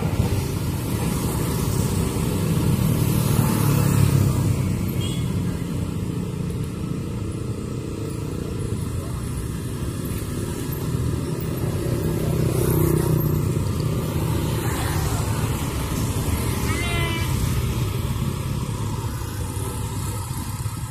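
Motorcycles and a bajaj auto-rickshaw running at a railway level crossing: a steady mix of small engines idling and pulling away, swelling and fading as they pass.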